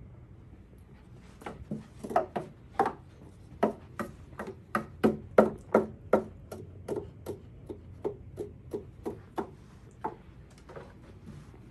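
A run of sharp clicks or taps, about three a second. It starts about a second in, is loudest around the middle and thins out near the end.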